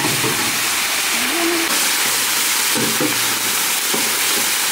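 Small labeo bata fish sizzling vigorously in a large pan of hot frying oil, freshly tipped in: a loud, steady hiss.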